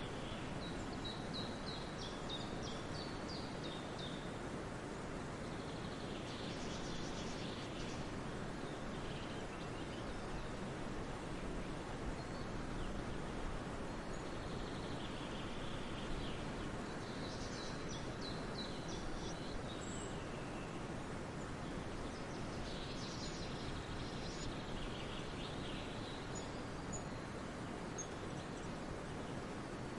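Songbirds singing short phrases of high chirping notes every several seconds, over a steady rushing background noise.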